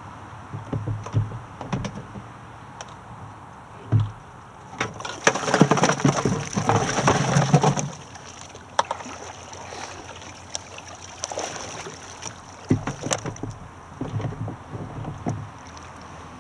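Plastic knocks, scrapes and rattles as a kayak's hatch gear is handled and a wheeled cart is fitted under the hull, with a dense stretch of clattering about five to eight seconds in and scattered knocks later.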